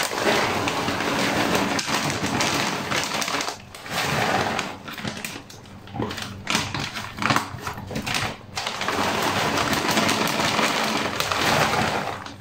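Plastic dry-cat-food bag rustling and crinkling as it is handled and shaken, in long stretches with short pauses, with a few pieces of dry kibble clicking onto a plate.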